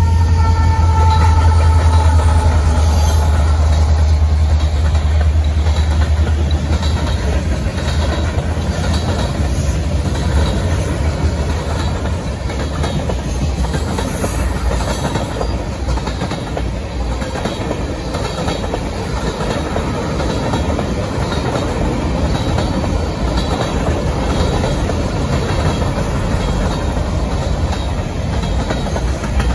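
BNSF freight train passing close by. A deep diesel rumble is loudest in the first several seconds and then fades. After that, tank cars and boxcars roll by with a steady clickety-clack of steel wheels over the rail joints.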